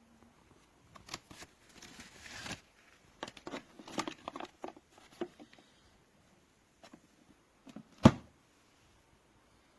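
Handling noises: a brief rustle, a run of small clicks and knocks, then one loud thump about eight seconds in.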